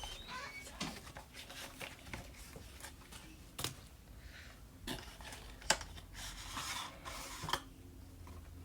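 A CPU retail box being opened and handled by hand: scattered clicks and taps with short rustles of cardboard and packaging, and a longer rustle about two-thirds of the way through.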